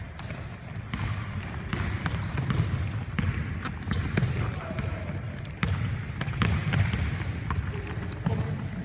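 Basketball bouncing on a hardwood gym floor in a run of sharp thuds, with short high squeaks of sneakers on the court growing busier from about halfway through.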